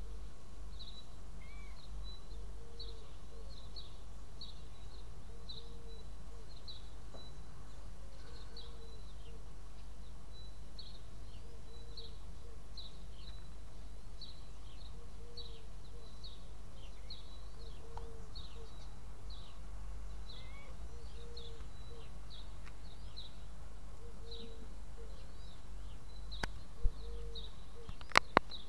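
Birds chirping in the background: short high chirps, one or two a second, over a steady low rumble. A few sharp clicks sound near the end.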